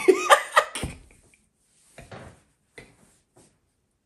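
A man laughing hard: a burst of loud laughs in the first second, then a few short, quiet, breathy gasps of laughter.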